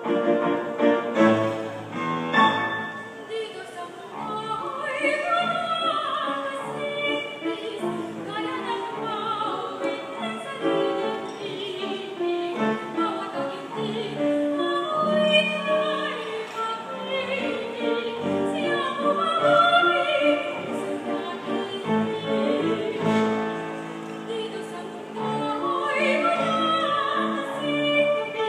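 A woman singing a Filipino kundiman in a classical, operatic style with wide vibrato, over piano accompaniment. A short piano introduction comes first, and the voice enters a few seconds in.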